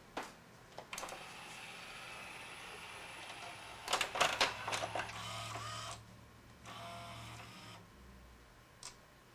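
Pioneer CLD-3070 LaserDisc player's Alpha Turn auto-reverse mechanism at work: a small motor whirs as the laser pickup is carried around to the disc's other side, with a burst of clicks and clunks about four seconds in. Two more short whirs follow, and a single click comes near the end.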